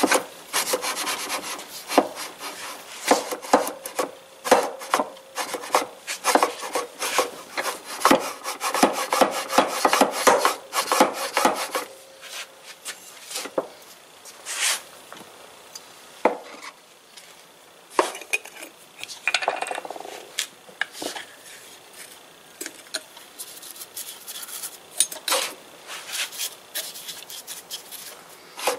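Hand file rasping on a steel part from a 1946 Logan lathe, dressing down damaged, upset metal. Rapid strokes, thinning after about twelve seconds to occasional strokes and clicks, then picking up again near the end.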